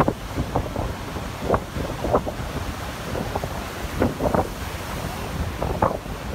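Heavy ocean surf breaking and washing in, with gusts of wind buffeting the microphone in irregular thumps.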